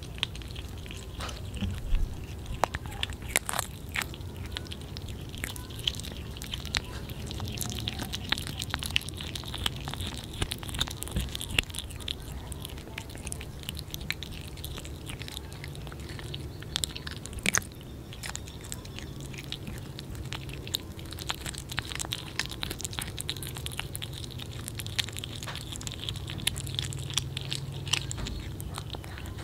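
Two kittens biting and chewing raw whole small fish, an irregular run of sharp crunches and clicks.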